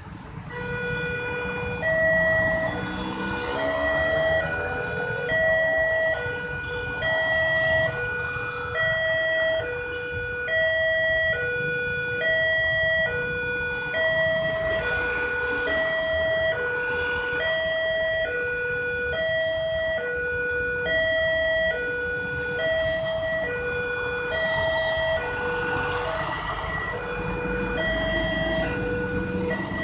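Railway level-crossing warning siren sounding through a horn loudspeaker: an electronic two-tone signal that takes turns between a lower and a higher note, about one cycle a second, starting about a second in, over road traffic. The siren warns that a train is coming and the barrier is closing.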